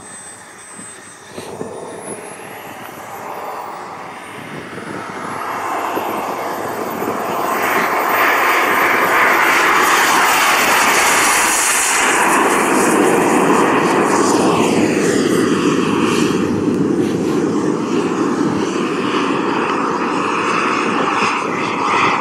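Jet Italia Atom 250 model turbine engine in a large FEJ F16 model jet, a high whine climbing in pitch as it spools up, then running loud and steady at takeoff power. Around two-thirds of the way through its pitch falls as the jet goes past.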